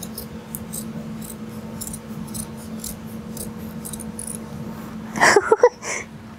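Scissors snipping through cotton T-shirt fabric, quick repeated cuts about three a second, then a brief louder sound about five seconds in.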